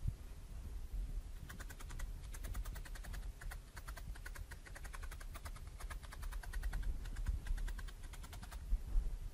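Felting needle jabbed quickly and repeatedly through wool into a foam mat: a fast, even run of clicks, several a second, starting about a second and a half in and stopping near the end.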